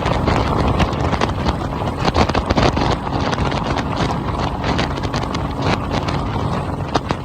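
Deck boat underway on its Tohatsu 200 hp four-stroke outboard, with a faint steady engine hum under heavy wind on the microphone and frequent short knocks from the hull on the water.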